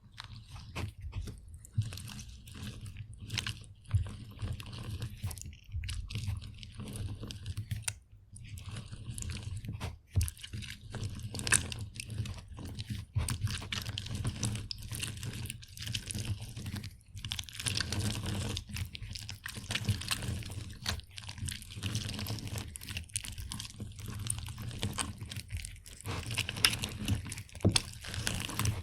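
An orange being squeezed on a juicer: irregular crunching and crackling as the fruit is pressed, broken by a few brief pauses.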